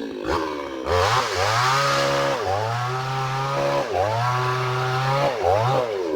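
Hyundai mini chainsaw revving up and holding high speed for a second or so at a time, dropping back between runs, about four times over, the last one brief.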